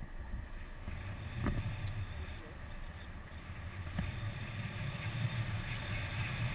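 Wind rushing over an action camera's microphone in paraglider flight: a steady low rumble under a rushing hiss, with two sharp clicks, one about a second and a half in and one near the middle.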